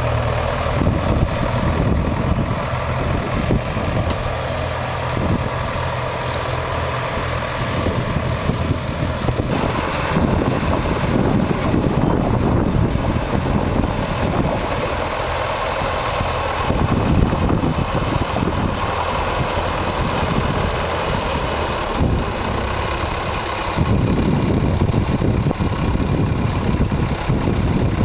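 Doe 130 Triple D twin-engined tractor running steadily while pulling a plough, growing louder for stretches as the load or the tractor's distance changes.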